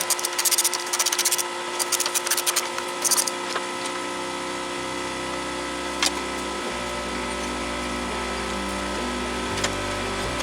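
Rapid clattering and rattling of parts and hand tools being worked under a car's hood for the first three seconds or so, with a single click about six seconds in. Background music with sustained notes and a changing bass runs underneath.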